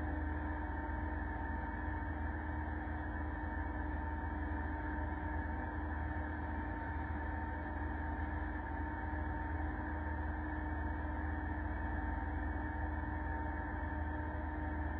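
Motorboat engine running at a steady cruising speed: a constant low drone with a couple of steady tones above it.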